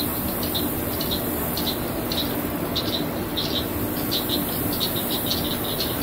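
Cicadas calling in short, high, rattling pulses that repeat several times a second, over a steady low hum.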